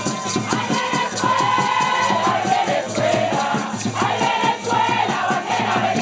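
Fast, steady drumming with a group of voices singing over it, amid a crowd, as festival music for San Juan.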